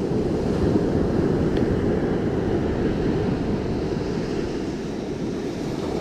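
Steady rushing wind on the microphone, mixed with the wash of ocean surf.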